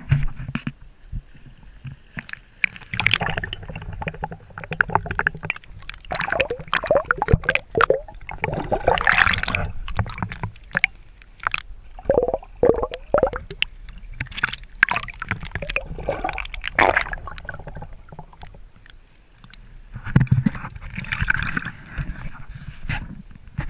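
Water splashing and sloshing close to the microphone, with irregular sharp clicks and knocks.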